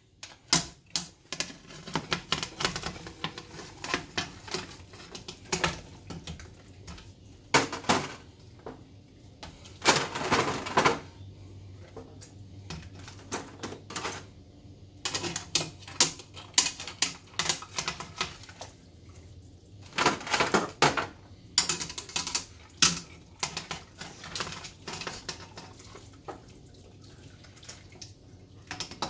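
Cooked crab and lobster shells clattering against a wire skimmer, an aluminium stockpot and a foil pan with a wire rack as the boiled seafood is lifted out: a steady run of light clicks and knocks, with a few longer, louder rattles.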